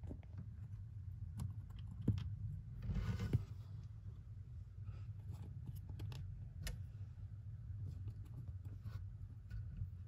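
Faint scattered clicks and rustles of a hamster moving through paper bedding and onto a wooden bridge, with a denser rustle about three seconds in.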